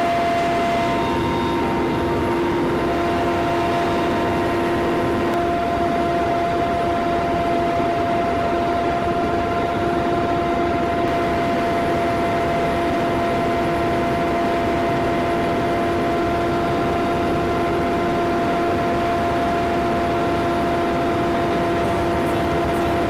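Aircraft engine running steadily: an even drone with a constant whine on top.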